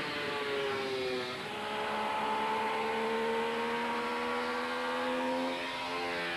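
Racing motorcycle engine pulling hard at speed: the pitch drops about a second in at a gear change, then climbs steadily as the revs rise, with another change up near the end.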